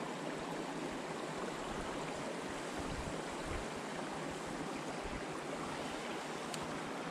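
Running water of a small creek: a steady, even rush.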